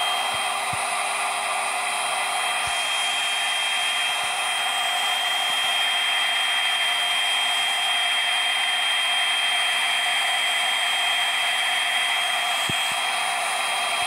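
Hoover Blade+ cordless stick vacuum with a crevice tool running steadily over carpet: a constant rush of air with a steady high motor whine on top.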